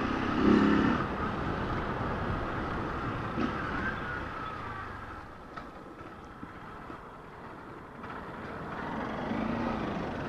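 Motorcycle engine running at low riding speed. It drops quieter for a few seconds in the middle and picks up again near the end.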